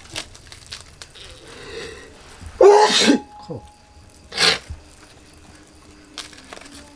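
A man sneezes twice. The first is a loud voiced "ah-choo" about two and a half seconds in, and the second, shorter one comes about a second and a half later.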